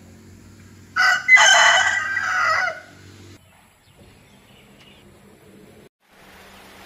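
A rooster crowing once, a loud crow of nearly two seconds starting about a second in, over a faint low steady hum.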